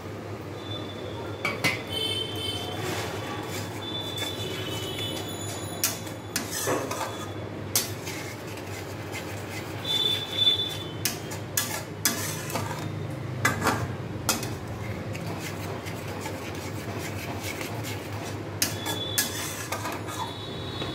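Steel spatula scraping and clinking against a steel kadai as a mustard-paste masala is stirred with water being added, in scattered strokes over a low steady hum.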